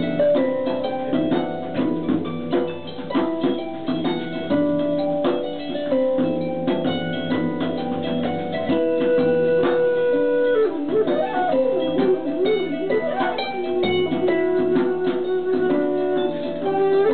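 Harp and flute playing a Celtic air together. Plucked harp notes run under long held flute notes, with a passage of quick, wavering flute ornaments in the middle.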